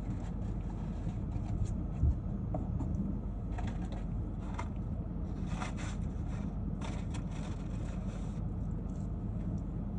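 Steady low hum inside a car, with several short rustles and scrapes of food packaging being handled and a single thump about two seconds in.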